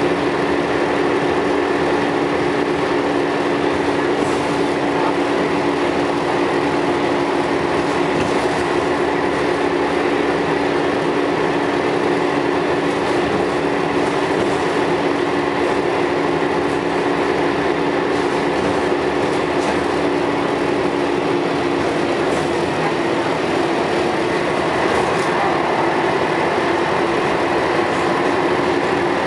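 Scania L113CRL bus's 11-litre straight-six diesel running under way, a steady drone with a droning whine whose pitch shifts about 22 seconds in.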